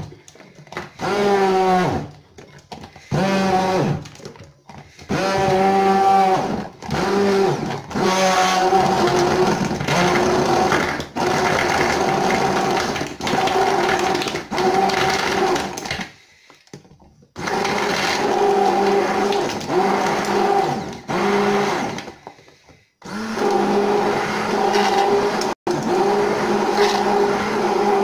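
Hand-held immersion blender motor pulsed in short bursts, each starting with a rising whine, then run in longer stretches with brief stops, blending raw carrot, ice and milk in a plastic beaker.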